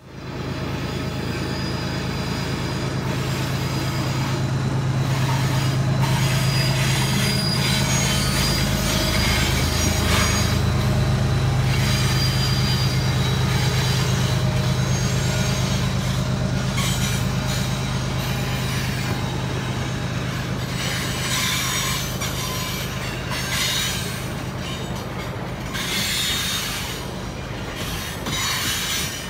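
Freight train of Sultran sulphur gondola cars rolling across a short railway bridge: a continuous rumble of steel wheels on rail over a low hum, with more clatter from the passing wheels in the second half.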